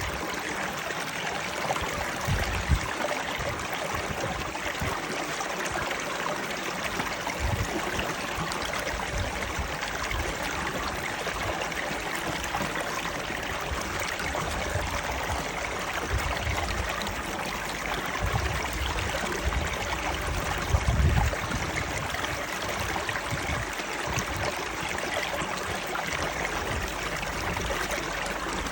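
Running water flowing steadily, an even rushing and trickling. Brief low thumps come and go, the loudest about 21 seconds in.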